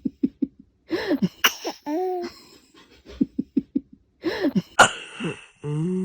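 A baby sneezing, with sharp sudden bursts about one and a half seconds in and near five seconds in, the second the loudest, amid quick choppy bursts of laughter.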